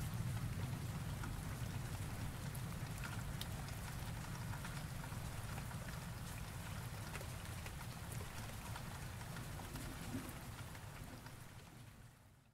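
Steady rain with a low rumble underneath, fading away near the end.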